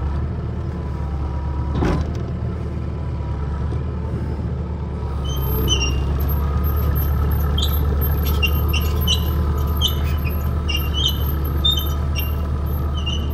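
Diesel engine of an excavator running steadily, growing louder about five seconds in. From then on there are repeated short high squeaks, with a single knock about two seconds in.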